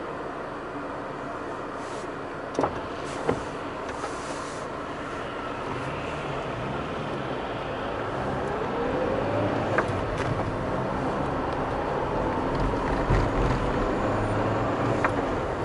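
Car engine idling at a traffic light, with two sharp clicks a few seconds in. About eight seconds in, the engine note rises in pitch and the road noise grows louder as the car pulls away and picks up speed.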